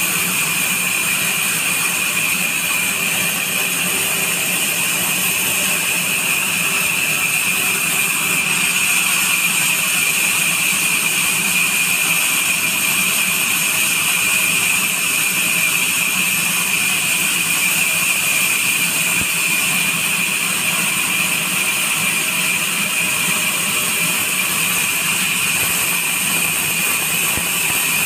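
Large sawmill band saw ripping lengthwise through a neem log: a steady, unbroken high-pitched whine with the hiss of the blade cutting.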